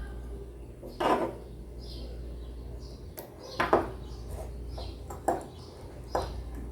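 Sharp, irregular clicks and knocks from a graphics card's heatsink and fan being handled and taken apart, with four louder knocks among fainter taps.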